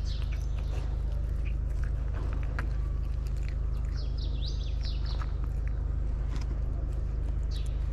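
A cat chewing and lapping wet cat food, with soft wet clicks. A small bird chirps near the start, several times about halfway through, and once near the end, over a steady low hum.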